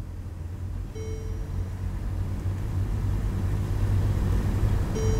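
Car interior noise while driving: a steady low engine and road rumble that grows louder as the car picks up speed. A short pitched chime sounds about a second in and again near the end.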